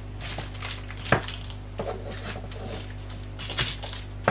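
Wrapped dishwasher tablets being set down one by one on a table as they are counted: a few light taps, the clearest about a second in and two more near the end, over a steady low hum.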